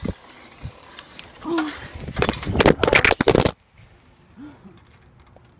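Loud rubbing and crackling of the phone's microphone being handled for about two seconds, cutting off suddenly to quiet.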